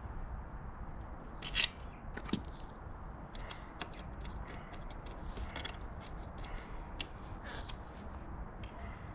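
Scattered light clicks and scrapes of motorcycle parts being handled and fitted back in place, with a louder knock about one and a half seconds in and another just after two seconds, over a faint steady low hum.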